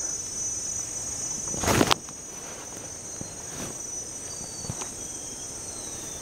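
Steady high-pitched chorus of crickets or similar insects. A brief loud noise cuts across it about two seconds in, and a few faint short chirps come later.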